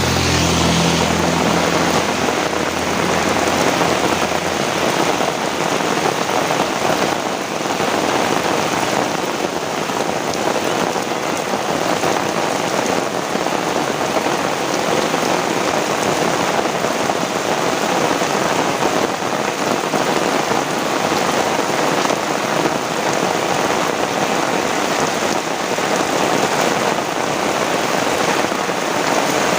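Heavy rain falling steadily, an even hiss of drops on surfaces. A low hum fades out about two seconds in.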